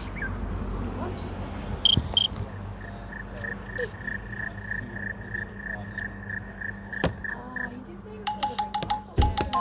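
Google Pixel 7 ringtones playing through the phone's speaker. A high pulsing electronic beep repeats about three times a second for several seconds, then near the end a different tone starts: a quick run of bright chiming notes.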